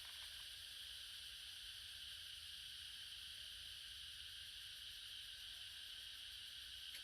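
Faint, steady high-pitched hiss with no distinct events.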